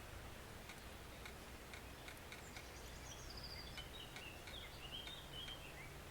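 Faint, steady stream water runs under a songbird singing one phrase of quick notes that falls in pitch, from about two seconds in until near the end. Short ticks come about twice a second throughout.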